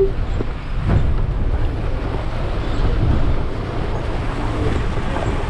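Passenger bus driving along a rough dirt road, a steady low rumble of engine and road noise with occasional jolts, heard from inside the bus.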